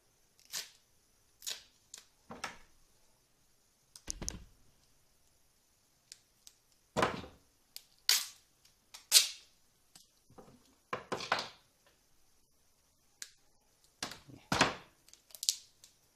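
Binding tape being pulled off its roll and torn in a string of short rasps, about a dozen, with a dull knock of handling about four seconds in.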